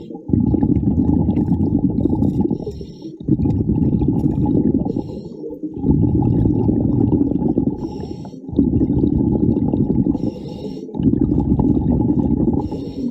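Scuba diver breathing underwater through a regulator: a low bubbling rumble on each exhalation, broken about every two and a half seconds by a short hiss of inhalation, five breaths in all.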